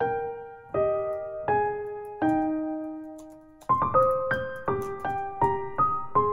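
Background piano music: single notes and chords struck and left to fade, slow at first, then quicker about halfway through.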